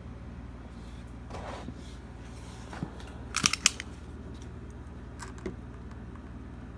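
Packaging of a trading-card blaster box being opened by hand: scattered rustles and clicks of wrap and cardboard, with a quick cluster of sharp crackling clicks about three and a half seconds in.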